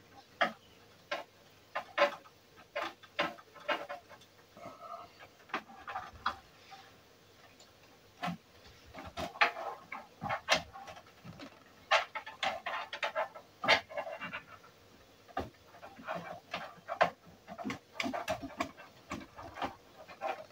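Irregular clicks and small knocks of computer cables and plastic connectors being handled, bent and fitted inside a PC case.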